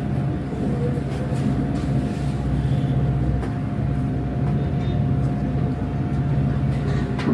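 Steady low rumble with a thin, constant hum tone running through it, and a few faint light clicks.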